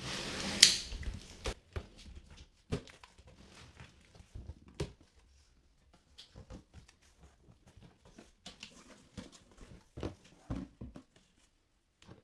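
Cardboard packaging being opened and handled by hand: a short tearing rip in the first second, then scattered knocks, taps and rustles as the box and its contents are moved about.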